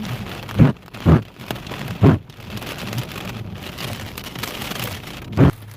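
Rain falling steadily during a thunderstorm, with four short, heavy thumps on the microphone, three close together in the first two seconds and one near the end.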